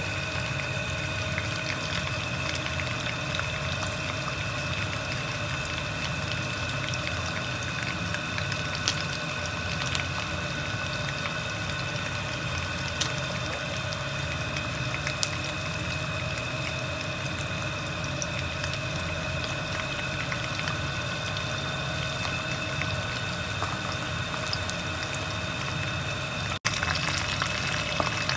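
Hot oil sizzling and bubbling around a whole chicken deep-frying in a wok, with scattered crackles and pops, over a steady hum with a faint high whine. The sound cuts out for an instant near the end.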